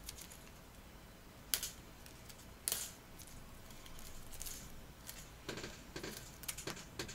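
Faint clicks and leaf rustling as drooping leaves of a Korean hornbeam bonsai are handled and picked off by hand: two sharper snaps in the first three seconds, then a quicker run of small clicks near the end.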